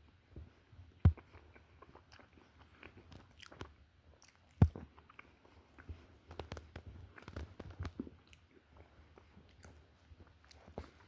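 Close-up chewing and biting of a chocolate donut topped with nuts: soft, irregular little crunches. Two sharp knocks stand out, about a second in and about four and a half seconds in.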